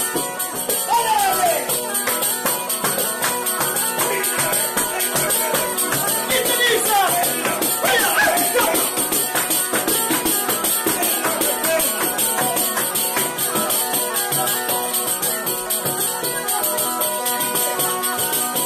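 Calabrian zampogna (bagpipe) playing a tarantella melody over its steady drones, with a tamburello (jingled frame drum) keeping a fast, even beat.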